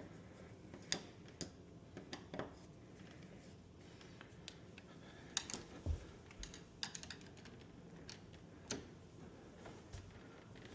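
Ratcheting screwdriver clicking in short, irregular runs as the screws of a door handle are driven back in, with one low knock about six seconds in.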